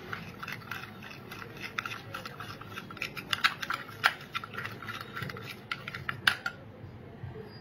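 A metal spoon stirs a thick paste in a small glass bowl, with quick repeated clinks and scrapes against the glass. The stirring stops shortly before the end.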